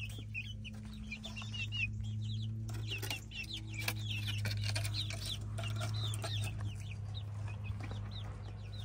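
Chickens peeping and clucking: a steady run of many short, high chirps, over a constant low hum.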